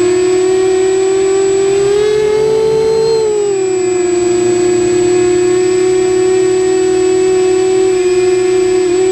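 Quadcopter electric motors and propellers whirring steadily, heard from the onboard camera. The pitch rises briefly a couple of seconds in as the throttle goes up, then settles back. A thin high whine sits above it throughout.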